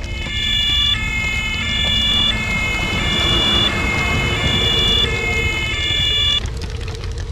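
Fire engine two-tone siren alternating between a high and a low note about every two-thirds of a second, cutting off abruptly near the end.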